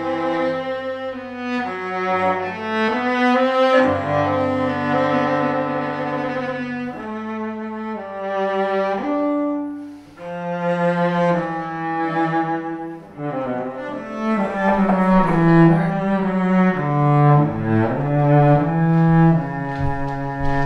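Solo cello being bowed, slow melodic lines with held low notes and double stops sounding two pitches at once.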